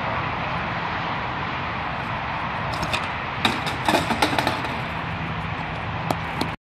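Steady outdoor background noise, with a clatter of sharp knocks from about three seconds in: a BMX bike crashing down and rattling on the concrete skatepark bowl after a bail. One more knock comes near the end.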